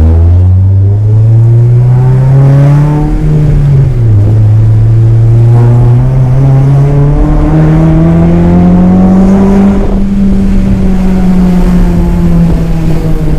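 Tuned Honda Civic Si engine and exhaust under load, heard from inside the car. It climbs in pitch, dips around three to four seconds in as at a gear change, climbs again to a peak about ten seconds in, then eases off and falls.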